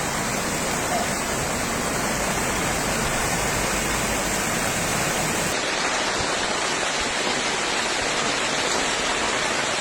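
Fast-flowing floodwater rushing steadily. About five and a half seconds in, the sound changes abruptly and becomes thinner in the deep end.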